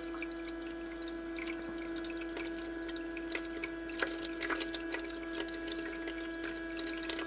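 Magic Chef MCIM22ST portable countertop ice maker humming steadily while it fills its ice tray with water, with water trickling and dripping and a few faint ticks.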